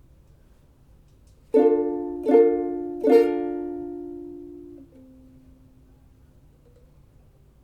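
Ukulele chord strummed three times in quick succession, the last strum left to ring and fade before it is damped.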